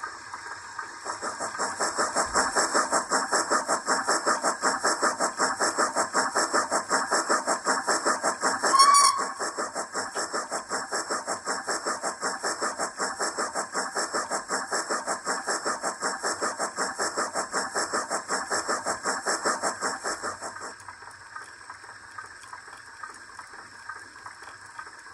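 ZIMO sound decoder in an OO gauge Hornby D16/3 model steam locomotive playing a steady, rapid chuffing exhaust beat, with one short whistle blast about nine seconds in. About twenty seconds in the chuffing stops, leaving a soft steam hiss.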